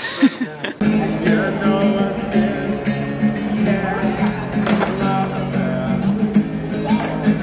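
Background music with guitar and a steady beat, coming in a little under a second in.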